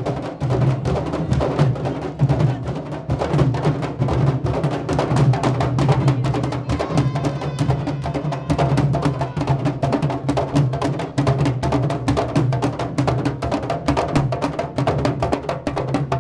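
A troupe of candombe drums (tamboriles) playing together while marching, struck with hand and stick in a dense, fast, steady rhythm.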